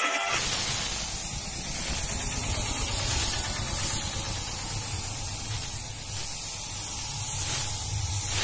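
Gravity-feed paint spray gun hissing as it sprays paint onto a car panel: a steady hiss that swells and eases a little, with a low rumble underneath. It cuts off suddenly near the end.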